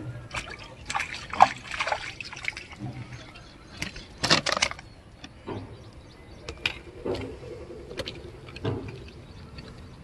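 Hooked tilapia thrashing at the water's surface in a run of short splashes, with the loudest splash about four seconds in. Scattered clicks and taps follow as the fish is landed.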